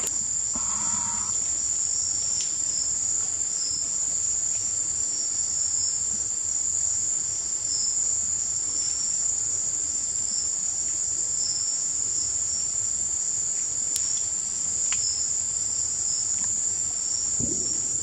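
Steady high-pitched chorus of insects, one continuous high trill with a slightly lower trill pulsing over it.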